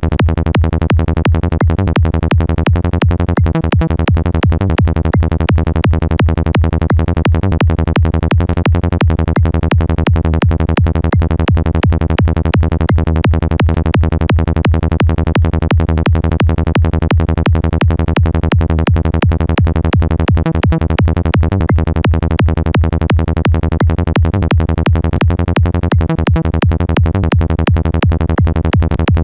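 Sylenth1 synthesizer bass patch for high-tech psytrance, looping at 170 BPM as fast, evenly repeated low notes with overtones reaching high up. A compressor is being dialled in on it.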